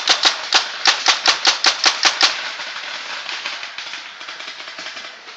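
Paintball marker firing a rapid string of shots, about six a second, stopping a little over two seconds in; fainter, scattered paintball shots follow.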